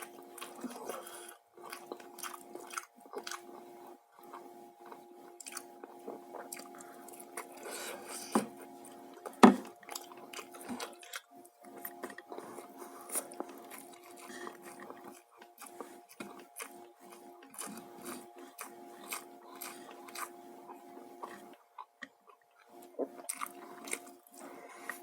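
Close-up eating sounds of fried chicken and rice: biting, chewing and crunching with many wet mouth clicks, one sharper bite about nine seconds in. A steady hum sits underneath and stops briefly near the end.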